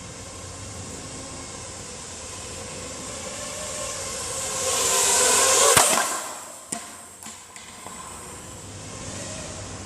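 ZMR250 racing quadcopter's brushless motors and propellers buzzing, swelling louder as it closes in at speed, then a sharp impact about six seconds in as it crashes, with a couple of lighter knocks after it before the steady buzz returns.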